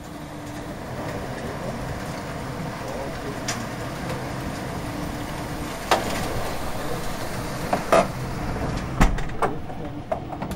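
Heavy hail and rain coming down in a steady rush during a hailstorm, with a handful of sharp knocks in the second half.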